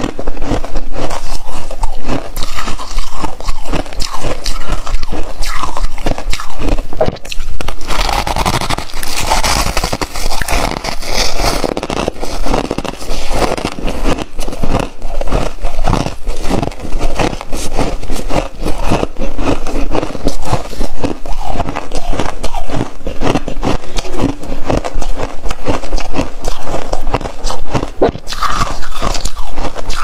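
Loud, continuous crisp crunching and scraping of frost and ice, a dense crackle of many small cracks.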